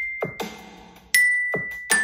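Toy xylophone with metal bars struck by a wooden mallet: the high C rings on, then B and A are struck about three-quarters of a second apart, stepping down the C major scale. Fainter taps fall between the notes.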